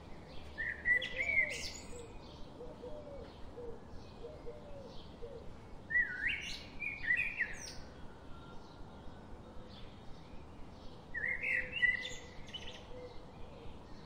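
Wild birds singing in three short bursts of sliding, warbling calls a few seconds apart, over a faint, steady series of short chirps repeating about three times a second.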